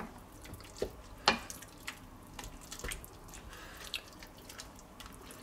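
Wooden spoon stirring thick creamy noodles in an enamelled pot: soft wet squelching with scattered light knocks of the spoon against the pot, the loudest a little over a second in.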